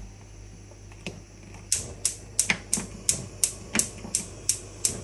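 Spark igniter of a Whirlpool gas hob ticking as a burner is lit: a single click about a second in, then steady, evenly spaced clicks, about three a second, from a little under two seconds in.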